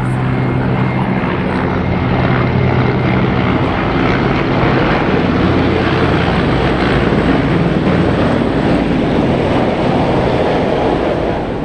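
A formation of three military helicopters passing low overhead: a dense rotor beat and turbine noise, loudest around the middle of the pass and easing off near the end.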